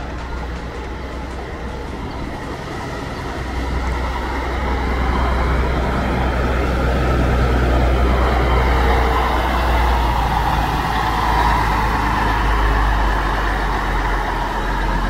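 Marcopolo Paradiso G8 1800 DD double-decker coach on a Mercedes-Benz diesel chassis driving slowly by: a low, steady engine rumble with road noise, growing louder about four seconds in and staying up.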